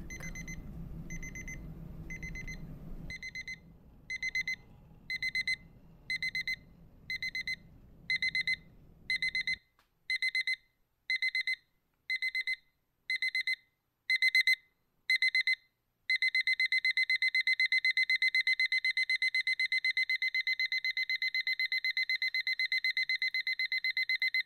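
Electronic alarm beeping: a high-pitched beep repeated about once a second, growing louder, then running together into one continuous tone about two-thirds of the way through.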